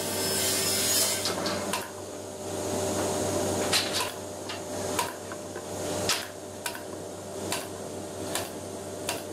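Pneumatic nail gun firing repeatedly into a wooden drawer. There are about ten sharp shots at uneven intervals, roughly one every half second to a second, over a steady low hum.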